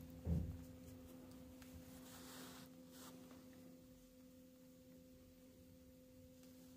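Quiet room tone with a steady low hum. A single soft thump comes just after the start, and a faint rustle follows about two to three seconds in.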